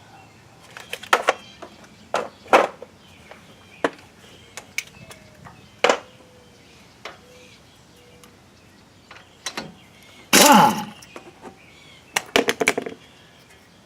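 Scattered metallic clanks and clicks of hand tools and brake parts being handled, with a longer rough scrape about ten seconds in and a quick run of knocks near the end.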